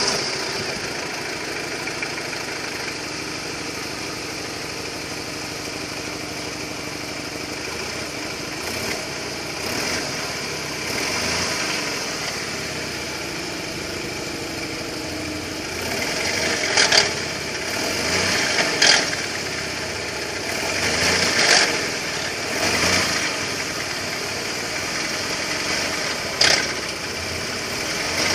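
BMW N42 four-cylinder petrol engine idling just after a cold start, the condition in which it knocks. A few short, sharp louder noises come in the second half.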